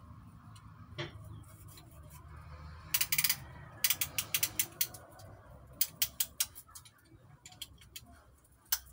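Runs of quick, sharp metallic clicks, the densest about three seconds in and more between four and six and a half seconds: the ratchet of a piston ring compressor being tightened around a piston before it goes into a diesel engine's cylinder.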